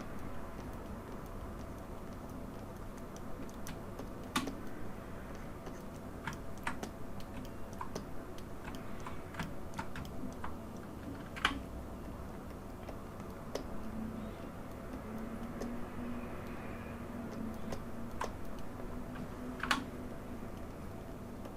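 Sparse, irregular clicks from a computer keyboard and mouse being worked, over a steady low background hum.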